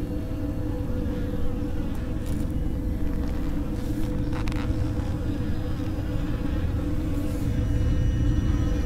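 A steady low buzzing drone that swells slightly near the end, with a few faint brief rustles over it.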